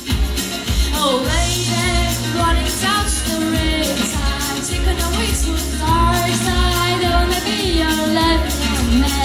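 Young girl singing a melody into a handheld microphone over amplified accompaniment with a steady bass beat, holding and bending long notes.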